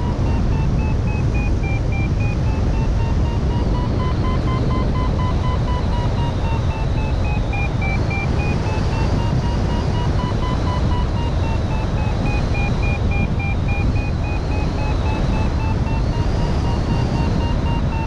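Airflow rushing over the camera microphone in flight, with a paragliding variometer (XC Tracer Maxx) sounding a fast-beeping tone whose pitch slowly rises and falls as it follows the glider's vertical speed.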